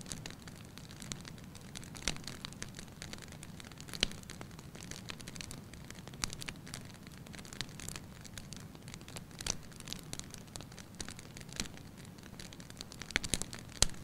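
Wood fire crackling: logs burning with irregular sharp pops and snaps over a steady low rush of flame. One louder pop comes about four seconds in, and a quick cluster of pops near the end.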